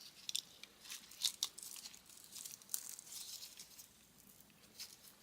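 Faint, irregular crinkling and crackling as a split plastic wire loom and its electrical tape are handled on an engine wiring harness.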